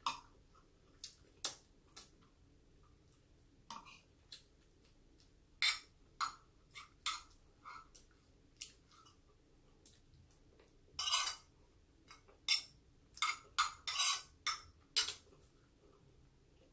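Metal spoon clinking and scraping against a ceramic plate in scattered short taps, with a denser run of clinks a little past the middle.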